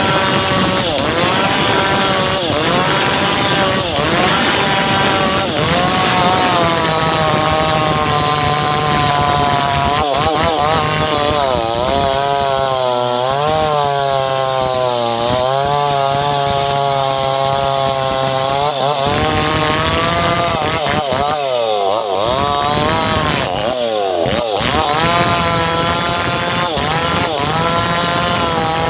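Homemade engine-driven saw (gergaji srekel) cutting teak wood. The engine runs continuously under load, its pitch sagging and recovering again and again as the blade works through the cut, with the deepest drop around the middle.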